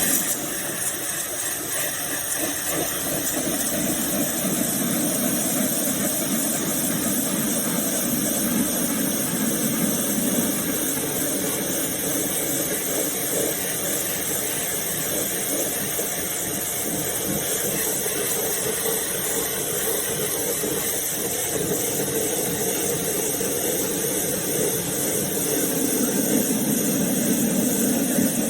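Pressure washer running, with the steady hiss of its high-pressure spray over the hum of its motor.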